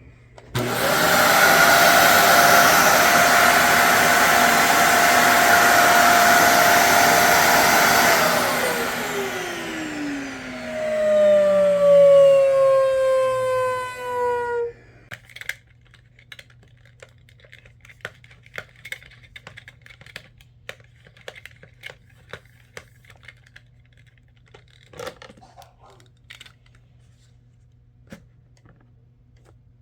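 Dyson vacuum cleaner running steadily with a high motor whine, then switched off. As the motor spins down, a loud falling whistle-howl rises and fades over several seconds and stops suddenly. This is the shutdown howl the fix is meant to cure. Faint clicks and handling noises follow.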